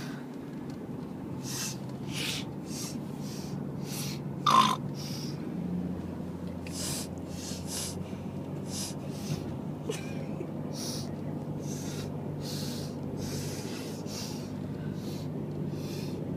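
Repeated short sniffs, irregular, about one or two a second, with one louder, squeaky snort about four and a half seconds in, over a steady low hum.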